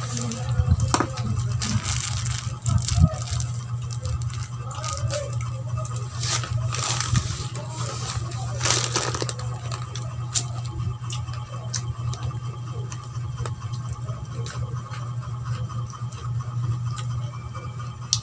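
Close-up mouth sounds of chewing raw cucumber slices: wet crunching with many small clicks and crackles, over a steady low hum.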